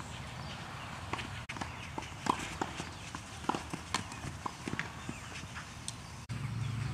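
Tennis balls being struck by rackets and bouncing on clay courts during a rally: a string of sharp, irregular pocks.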